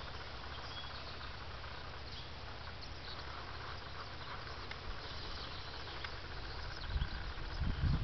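Open-field ambience: a steady low wind rumble on the microphone that swells into louder gusts near the end, with faint short high chirps scattered through.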